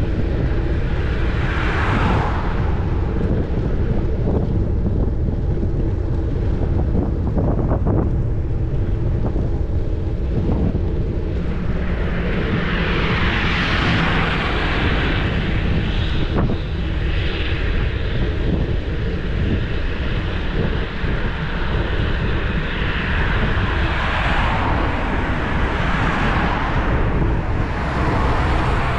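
Wind buffeting the microphone of a bicycle-mounted GoPro Hero 10 while riding, a steady low rumble. Vehicles pass several times, each a swelling and fading hiss: about two seconds in, for a few seconds midway, and near the end.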